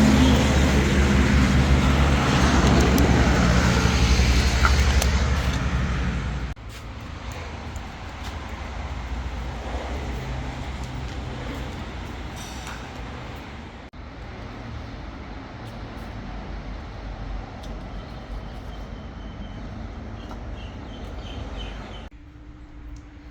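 A motor engine running loudly and steadily for about six seconds, then quieter vehicle and traffic noise through several abruptly cut clips.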